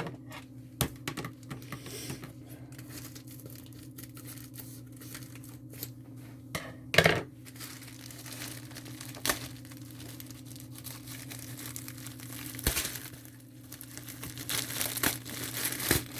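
Plastic packaging of a diamond painting kit crinkling and tearing as it is opened and handled, with scattered sharp clicks and a loud rustle about seven seconds in.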